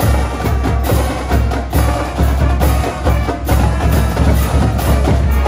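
High school pep band playing: brass and woodwinds over snare drums, tenor drums and crash cymbals, with a steady drum beat.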